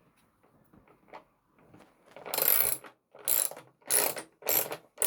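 Ratchet wrench clicking as it turns a bolt in, snugged but not yet fully tightened. After a couple of seconds of faint handling clicks come about five even back-and-forth strokes, roughly one and a half a second.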